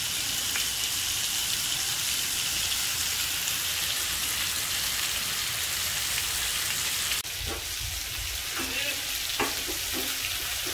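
Marinated chicken pieces sizzling in hot oil on a ridged grill pan, a steady hiss. About seven seconds in it cuts to a slightly quieter sizzle from chicken cooking in a stovetop gas-oven tandoor.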